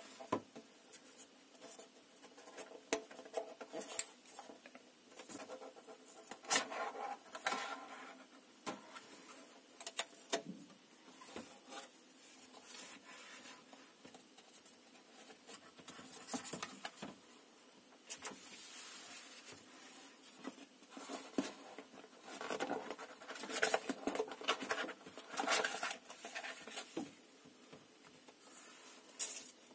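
Hands handling a rigid cardboard gift box and its clear plastic cover and inner tray: irregular taps, clicks and rubbing as the packaging is opened and lifted apart.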